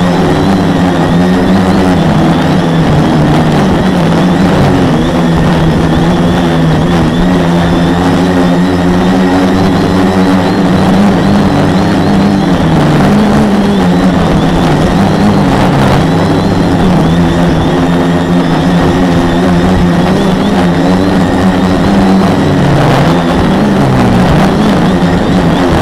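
Four brushless motors (Multistar 2212 920kv) spinning 10x4.5 propellers on a 450-size quadcopter in flight, heard from a camera on its frame: a loud, steady buzzing hum whose pitch wavers up and down as the motor speeds change, over a constant rush of noise.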